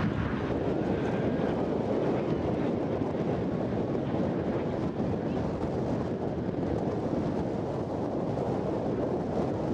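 Steady rumble of BAE Hawk T1 jet trainers flying past in formation, mixed with wind on the microphone.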